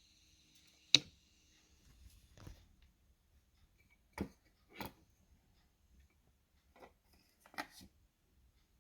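A faint, steady high-pitched whine that stops about two and a half seconds in. Over it comes one loud sharp click about a second in, followed by a scattering of softer clicks and knocks at uneven intervals.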